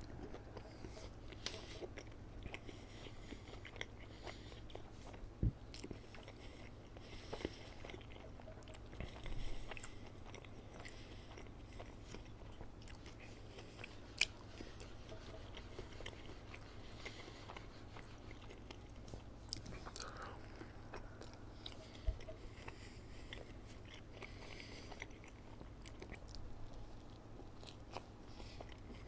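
Close-miked mouth sounds of eating McDonald's fast food: biting, chewing and crunching, with scattered sharp clicks, over a steady low hum.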